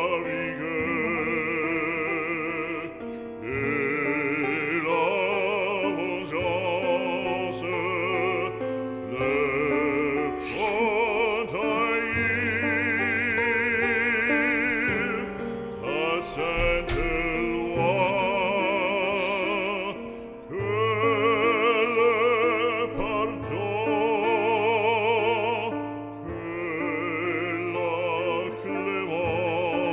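Background music: a classical piece with an operatic voice singing sustained, wavering notes over an accompaniment.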